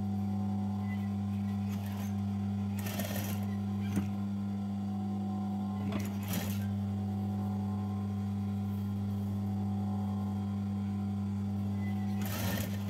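Sewing machine motor humming steadily as it runs, with a few short rustles about three, six and twelve seconds in.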